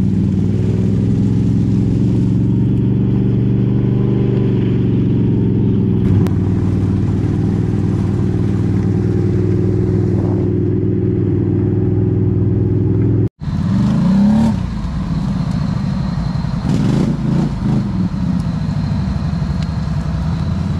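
ATV engine held at a steady high throttle for about thirteen seconds. After a sudden break it revs up briefly, then runs on at a changing throttle.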